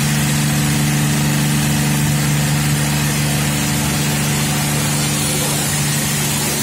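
High-pressure triplex plunger pump driven by an electric motor, running steadily: an even hum with a constant hiss over it.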